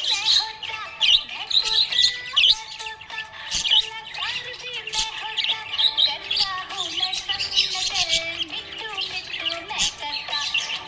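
Small pet parrots chirping and warbling in a continuous chatter, with quick high chirps over lower wavering, gliding notes and no pause.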